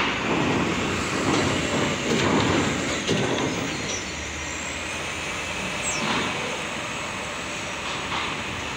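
Heavy cargo trucks driving off a ferry's steel ramp: diesel engines running while the wheels roll over the steel ramp plates with clanking and rumbling. The clatter is loudest in the first three seconds or so, then settles to a steadier rumble.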